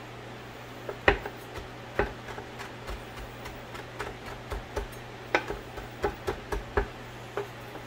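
Chef's knife chopping dill on a wooden cutting board: irregular knocks of the blade on the board, a few a second and coming faster in the second half. A steady low hum runs underneath.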